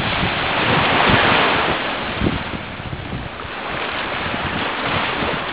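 North Sea surf washing onto the beach, with wind buffeting the microphone; the surf swells loudest about a second in, eases, then builds again near the end.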